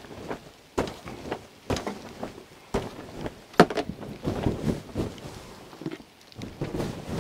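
Irregular crunching footsteps in snow mixed with knocks and thuds of awning poles and camping gear being handled. A sharp knock about three and a half seconds in is the loudest.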